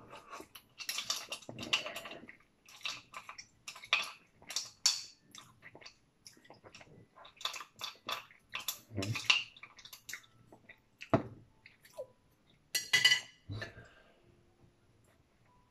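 A person eating from a small bowl with chopsticks: sips from the bowl, chopsticks clicking against it, and chewing, in short irregular bursts with a few louder clinks and slurps.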